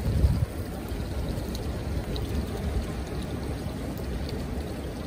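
Low, uneven rumble of wind buffeting the microphone, mixed with running water in an outdoor hot-spring pool, with a stronger gust right at the start.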